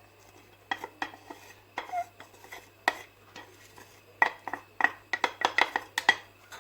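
A utensil clinking and scraping against a pan while onion is stirred in oil. There are scattered knocks, then a quick run of clinks a few seconds in.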